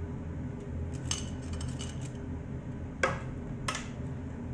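Bell pepper pieces and hands knocking against a metal roasting pan of raw chicken and vegetables: three sharp clinks, the loudest about three seconds in, over a steady low hum.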